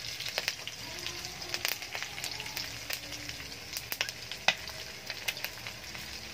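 Pork frying in hot oil and rendered fat in a pan: a steady sizzle with irregular sharp pops and crackles of spattering fat, the loudest pop about four and a half seconds in.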